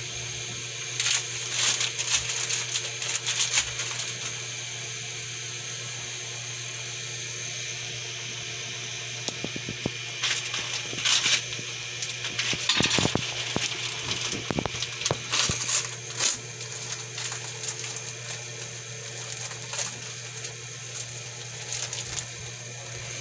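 Minced garlic and onion sautéing in melted butter in a nonstick pan: a steady sizzle with bursts of crackling pops.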